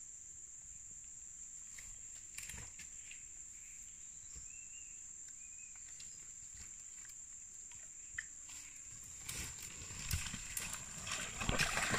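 Steady high-pitched insect buzz with faint scattered ticks. In the last few seconds a growing rustle and splashing, as someone moves through the shallow creek.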